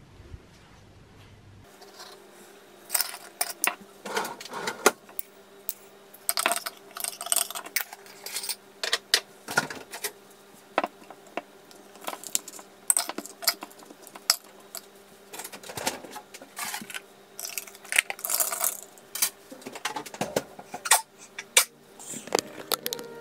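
Irregular clinks and clatters of a metal spoon against a glass mug and other kitchenware being handled on a counter while coffee is made, over a faint steady hum. The clinking starts about two seconds in.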